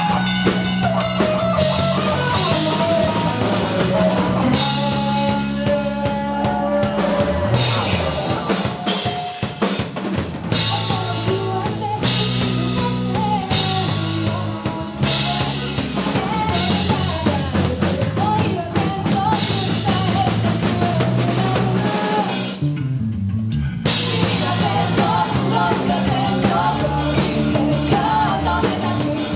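Rock band music with a full drum kit driving a steady beat under bass and pitched lead parts. About three-quarters of the way through, the drums and upper instruments drop out for about a second before the band comes back in.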